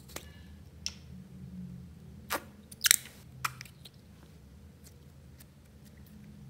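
A small plastic novelty container being opened and clear slime pulled out of it: a handful of sharp plastic clicks and crackles, the loudest about three seconds in, then only faint ticks.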